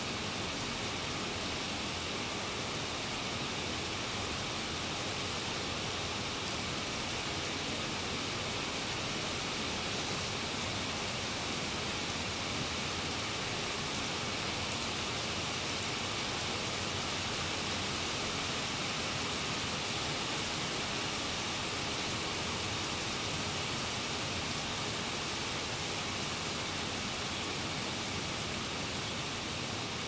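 Steady rain falling on a flooded court with standing water, an even hiss with no single drops or other events standing out.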